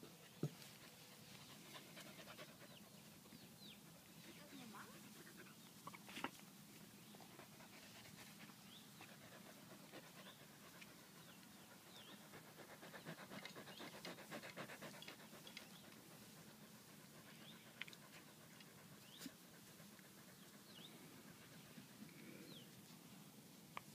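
Faint panting from young puppies at play, heaviest for a few seconds around the middle, with scattered short high chirps and a couple of sharp knocks.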